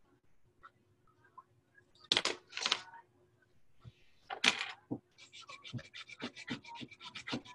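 Scratching noises: a few loud scrapes, then from about five seconds in a quick run of short scratches, about five a second.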